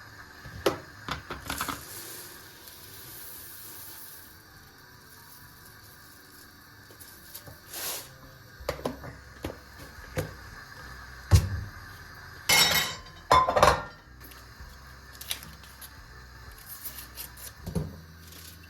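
Dishes and cutlery being handled: scattered clinks and knocks of crockery and metal, with two louder clattering bursts a little past the middle.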